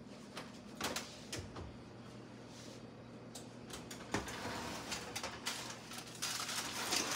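Faint clicks and knocks of cookware and utensils being handled on a kitchen counter, scattered and busier in the second half, over a low steady hum.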